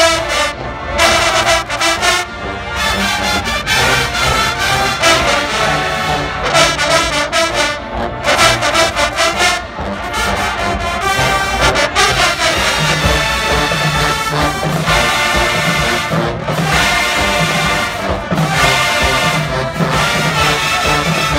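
Marching band playing loudly with a full brass section, trombones and trumpets carrying a continuous tune.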